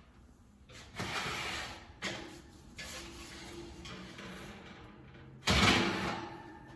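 Kitchen oven door being opened and a baking pan being slid out and handled: scraping and rattling noises, then a loud clunk about five and a half seconds in.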